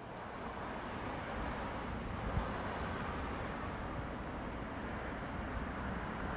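Steady outdoor road ambience: a wash of distant traffic noise with wind, rising over the first second, with a few low wind buffets on the microphone.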